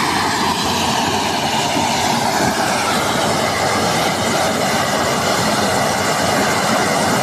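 Combine harvester running at work: a loud, steady mechanical noise of engine and machinery with no breaks.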